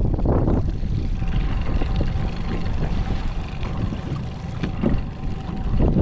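Strong wind buffeting the microphone in a steady low rumble, with a few light knocks near the middle.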